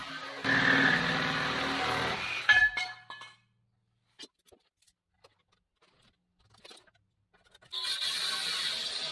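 Cordless reciprocating saw cutting into a steel frame rail, stopping about two and a half seconds in with a sharp clank. Then near silence with a few faint handling clicks, until an angle grinder starts cutting the steel near the end.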